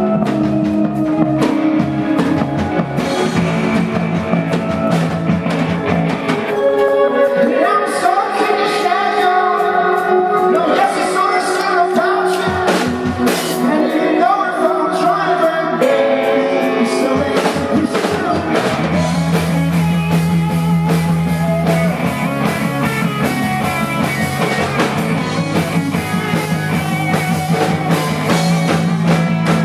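Live rock band playing a song, with drum kit, guitar and bass under a sung vocal line. The low bass part drops out for a stretch in the middle, then comes back in.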